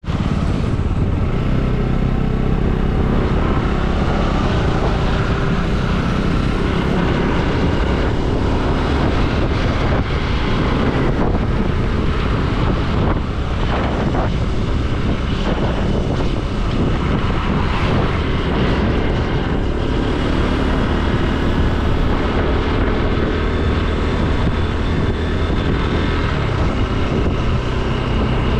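Motorcycle engine running steadily on the move, with wind and road noise over it.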